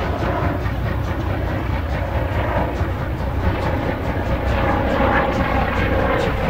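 A helicopter's rotor drone overhead, mixed with the exhaust of class 52 steam locomotive 52 8134 working hard as it pulls its train away.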